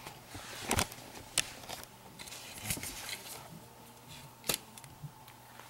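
Plastic Breyer model horses being handled and moved: a few sharp clicks and taps with faint rustling and scraping in between.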